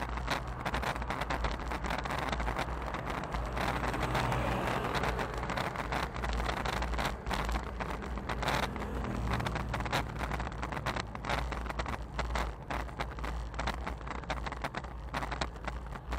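Wind rumble and rattling crackle on a bicycle-mounted action camera while riding, with oncoming cars and a small truck passing in the other lane.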